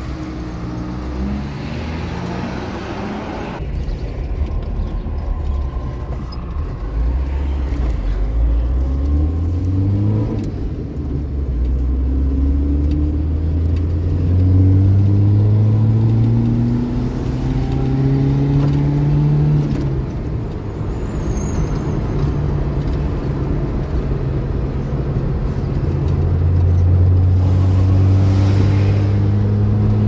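Car engine heard from inside the cabin, pulling away and accelerating. Its pitch climbs and drops back with each gear change, then holds steady at cruising speed near the end.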